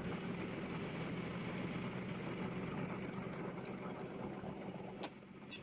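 An engine idling steadily, a low even hum that eases off a little about five seconds in.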